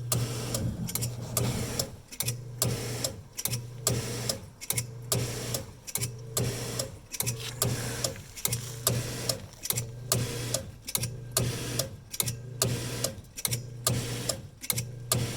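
Hot tub pump 2 motor running just after power-up: a low electrical hum that cuts in and out about once a second, with rapid clicking and rattling over it.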